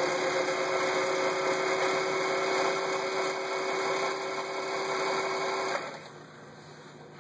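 Elna TSP 72C sewing machine running at a steady speed as it stitches one of its built-in zigzag embroidery patterns, with a steady motor hum, then stopping about six seconds in.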